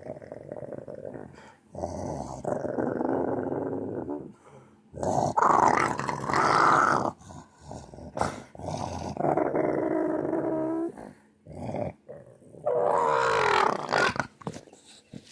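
Spooky growling sound effect: about four long, rough growls, each one to two seconds, separated by short pauses, the middle ones the loudest.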